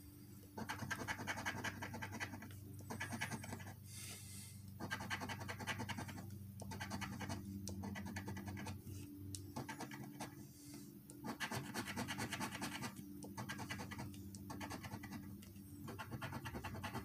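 A coin scratching the coating off a $5 Crossword Xtra scratch-off lottery ticket in quick rubbing strokes, in runs of one to two seconds with brief pauses between.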